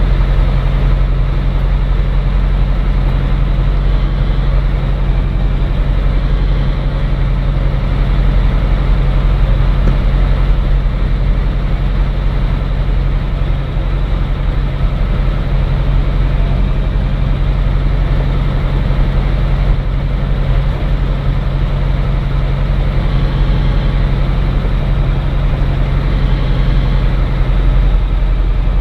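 Cirrus SR20's piston engine and propeller droning steadily, heard inside the cabin.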